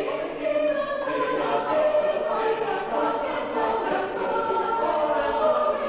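Mixed high school choir of male and female voices singing together in harmony.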